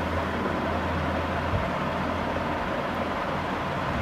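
Steady background rumble and hiss with a low hum that drops away about a second and a half in; no distinct clicks or handling sounds stand out.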